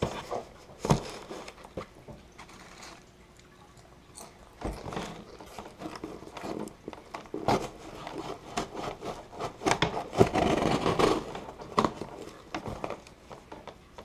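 Knife cutting and scraping through the packing tape and cardboard of a shipping box, in uneven scrapes and clicks that grow busier and louder about a third of the way in.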